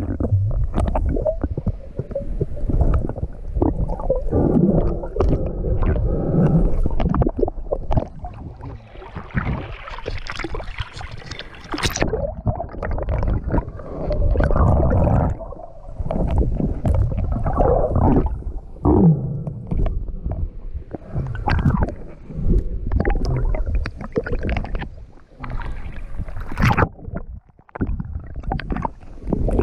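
Muffled underwater rumble and water movement from a free diver moving over a rocky riverbed, with many scattered knocks and clicks.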